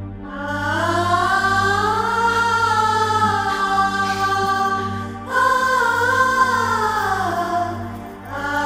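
Film background score: a wordless vocal melody in long phrases that rise and fall, over a steady low drone.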